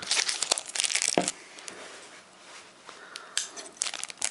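Foil Pokémon booster-pack wrappers crinkling and crackling as they are handled, in bursts: a long spell of crinkling at first, then a few short crackles near the end.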